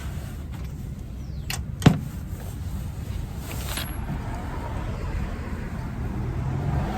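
Hand wrench working a brake bolt: one sharp metallic click about two seconds in, with a couple of fainter clicks around it, over a steady low rumble.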